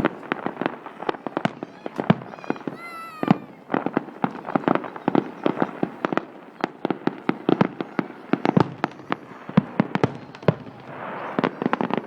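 Fireworks display: many sharp bangs of bursting shells in quick, irregular succession. A whistling firework rises in pitch about three seconds in, and a hissing rush comes near the end.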